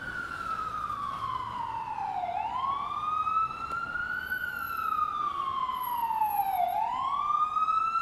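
Emergency vehicle siren in a slow wail, its pitch sliding down and then climbing back up, twice.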